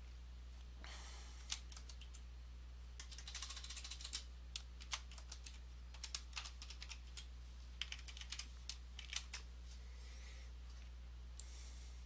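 Computer keyboard keys clicking as a password is typed: irregular keystrokes for several seconds, with one more click near the end. A steady low electrical hum runs underneath.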